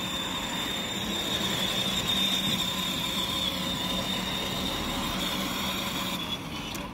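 Electric motors and gearbox of a ride-on Nissan GT-R toy car whining steadily as it drives along an asphalt path. The whine stops shortly before the end.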